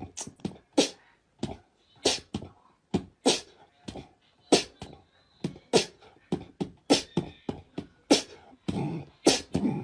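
Puppies barking and yapping at each other while play-fighting: a quick, uneven string of short, sharp barks, about two a second.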